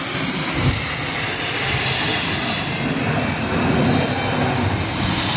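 Race jet boat's engine and water jet running flat out through rapids. A high whine climbs in pitch through the middle and eases back near the end, over a rushing wash of noise.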